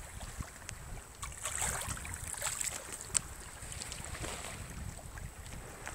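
Wind buffeting the microphone with a low rumble, over small waves splashing and lapping against a kayak on choppy open sea. The splashing is busiest a second or two in, and there is a single sharp tick about three seconds in.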